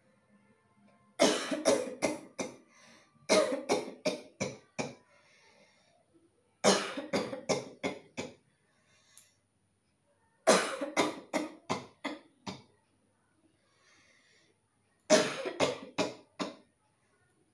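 A person coughing on purpose in five bouts, each a quick run of several coughs in a row, with short pauses between the bouts.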